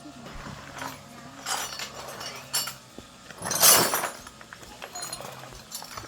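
Light metallic clinks and clatter of small hard objects being handled, with one louder rushing scrape about three and a half seconds in.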